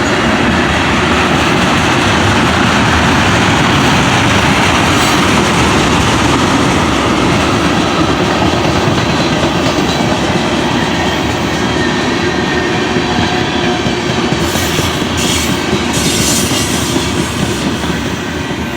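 Freight cars of a long mixed freight train rolling past, steel wheels clacking and grinding on the rails in a loud, steady run, with a few short high-pitched bursts near the end.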